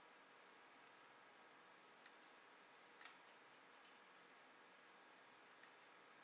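Near silence with three faint computer mouse clicks: about two seconds in, again a second later, and once more near the end, over a faint steady hiss.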